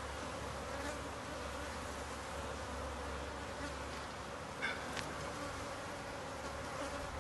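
Swarm of honeybees buzzing steadily around an opened hive, with one short click about two-thirds of the way through.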